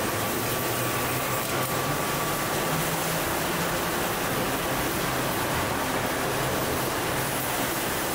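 Steady hum and hiss of a factory packing line: carton case-sealing machinery and powered roller conveyors running continuously.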